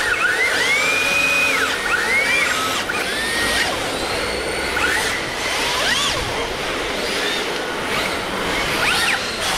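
Several RC drift cars' electric motors whining, rising and falling in pitch over and over as the throttles are blipped on and off. The whines from different cars overlap, over a steady hiss.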